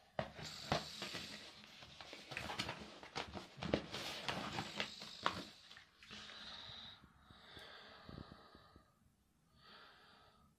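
Plastic disc cases and their packaging rustling and clicking as they are handled, with several sharp clicks in the first half. Later come a few breathy exhalations close to the microphone.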